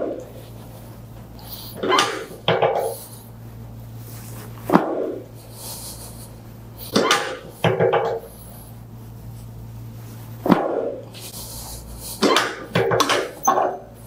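Chiropractic drop table clacking as its segments drop under quick thrusts to the lower back during a lumbar adjustment. There are about ten sharp knocks, several in quick pairs or clusters, each with a brief duller sound after it.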